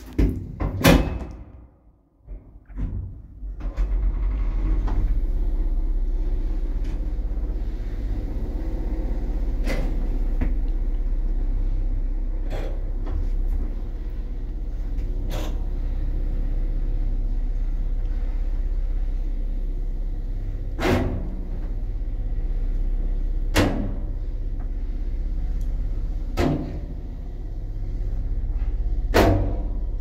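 Lift doors clunking shut, then a 1988 passenger lift's car travelling in its shaft: a steady low hum and rumble, with a sharp click every few seconds.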